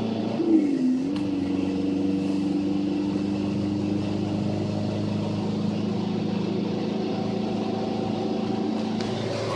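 Mitsubishi L200 pickup's engine running steadily, with a higher whine that comes in about half a second in, dips in pitch, then holds steady for a few seconds before fading.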